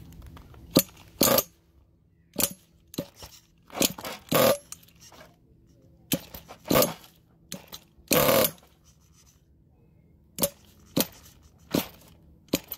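Nitro engine of a 1/8-scale Losi 8 truggy being pull-started: about a dozen short yanks of the recoil starter, each turning the engine over briefly without it catching.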